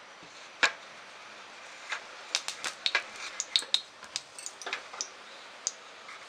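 A spoonful of ghee dropped into a hot stainless steel kadhai: a sharp click of the steel spoon on the pan about half a second in, then scattered light ticks and pops as the ghee melts and starts to bubble in the heated pan.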